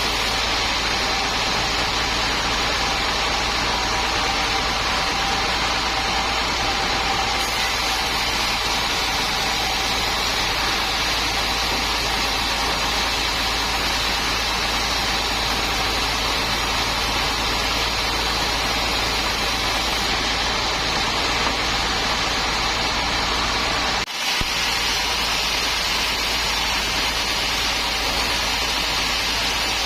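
Sawmill machinery running steadily: an even engine drone with a constant hiss, unchanging in level, broken by a momentary dropout late on.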